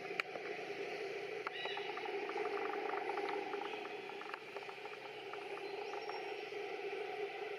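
Steady outdoor background hum, with a quick run of faint clicks in the middle and a brief high chirp near the end.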